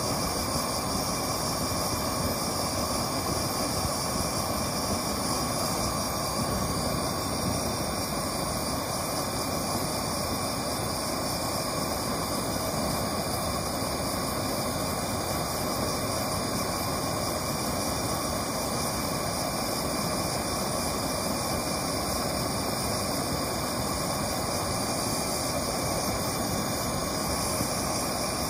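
Handheld gas torch burning steadily, its flame blowing into a can lined with heat-shielding paste to heat a small piece of steel: a continuous, even rushing noise.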